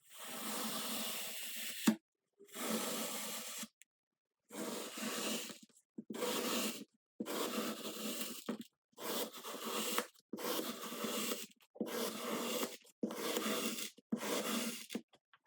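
Kinetic sand being cut and worked: about ten separate grainy strokes of a second or so each, with dead silence between them.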